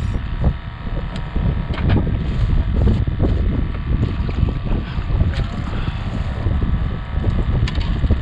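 Wind buffeting the microphone in a loud, gusting rumble, broken by a few sharp knocks and clicks.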